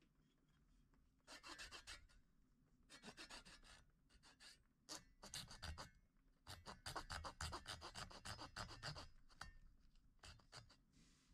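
Small fine-toothed hand saw cutting into a small wooden carving blank held in the hand: faint, quick back-and-forth rasping strokes in several short bursts, with the longest unbroken run in the second half.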